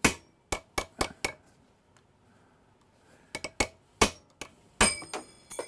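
Hammer blows on a cold chisel, cutting the handle off a metal tablespoon held in a bench vise to make a spoon fishing lure. About ten sharp metal-on-metal strikes come in two runs about two seconds apart, and the last strikes leave a high ringing.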